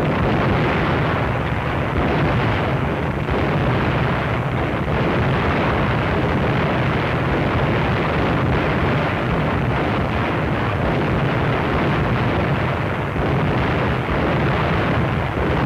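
Battleship USS North Carolina's secondary guns firing in a continuous barrage, the shots running together into one steady, dense rumble.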